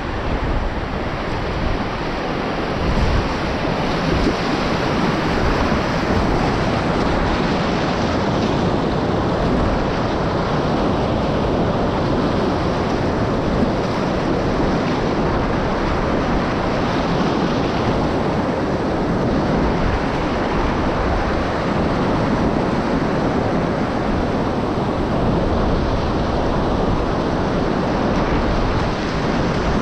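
Whitewater of a river rapid rushing steadily, with a rumble of wind on the microphone underneath.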